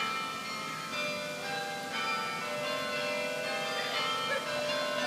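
Sather Tower carillon playing a tune. Bells are struck one note after another, and each note rings on and overlaps the next.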